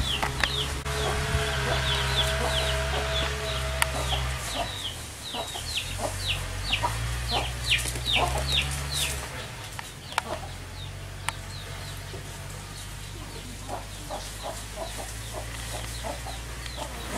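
Chickens clucking, with rapid high chirping calls through the first half and a run of short lower clucks in the second half, over a steady low rumble.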